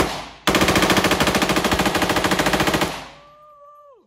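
A KRISS Vector submachine gun fires one shot, then about half a second later a rapid full-auto burst of about two and a half seconds before the firing stops.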